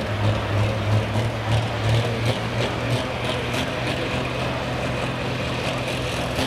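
Diesel engine of a light pro pulling tractor idling at the line, a steady low hum that pulses rhythmically for about the first three seconds, then runs more evenly.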